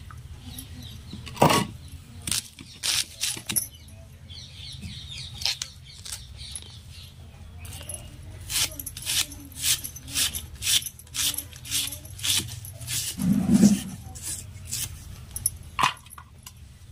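Knife cutting a raw onion held in the hand, a series of crisp clicking cuts: scattered at first, then a steady run of about two to three cuts a second.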